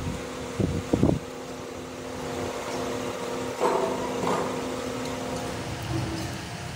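Steady hum of a workshop fan, with a couple of dull knocks about a second in and a few short clatters a little later as metal parts are handled on the bench.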